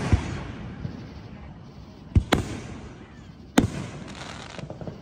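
Aerial fireworks bursting overhead: a sharp bang just after the start, a quick pair of bangs a little past two seconds, and another at about three and a half seconds.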